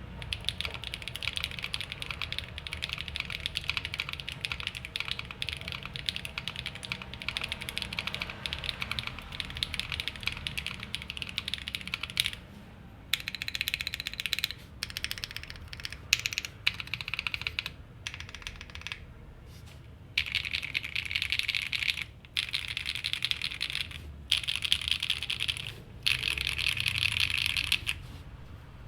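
Typing on an Akko Monsgeek M1 mechanical keyboard with lubed Akko V3 Cream Blue tactile switches on a polycarbonate plate. It starts as a fast, continuous stream of keystrokes, and from about twelve seconds in comes in bursts broken by short pauses.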